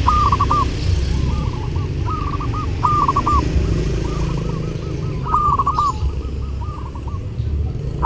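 Zebra dove (perkutut) cooing: repeated short phrases of quick, soft staccato coos, with four loud phrases a second or two apart and fainter coo phrases in between. A steady low rumble runs underneath.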